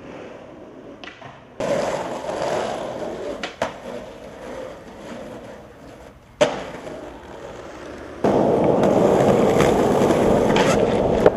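Skateboard wheels rolling over pavement, with a few sharp board clacks, the loudest about six seconds in. From about eight seconds in the rolling is louder and steadier.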